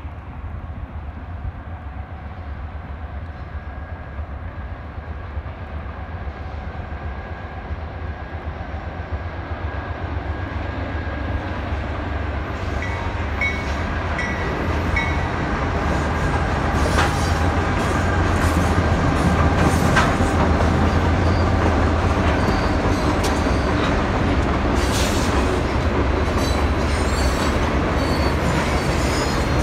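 Norfolk Southern freight train approaching, growing steadily louder over the first half, then freight cars rolling past with a continuous rumble and wheels clicking sharply over the rail joints.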